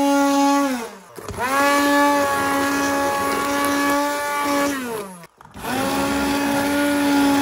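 Handheld immersion blender puréeing cooked tomato soup: its motor runs with a steady whine, stopping and starting again twice, the pitch sliding down each time it lets off.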